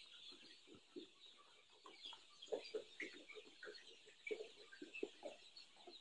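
A large flock of three-and-a-half-week-old chicks peeping faintly: many short, overlapping high chirps scattered unevenly, with no rhythm.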